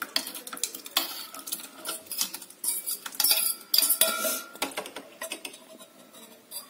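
A metal fork scraping and clinking against a stainless-steel bowl in irregular strokes as passion fruit pulp is scraped out into a larger steel bowl of sugar syrup. A faint ring from the metal comes partway through.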